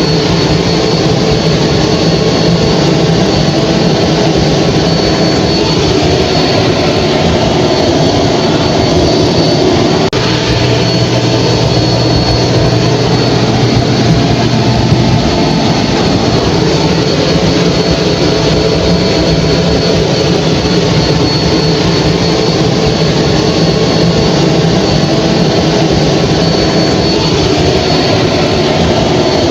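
Hair dryer running steadily: a loud, even rush of fan and blown air with a faint high whine over it.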